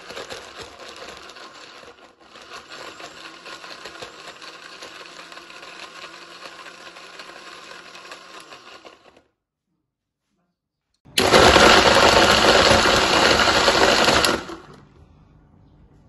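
Electric mixer grinder (Cello Kitchenette) blending a smoothie, its motor whirring steadily for about nine seconds with a low hum. It stops, then starts again for a louder run of about three seconds.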